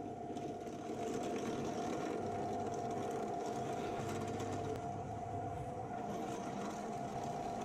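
Drill press motor running steadily with a constant whine while countersinking pilot holes in MDF battens.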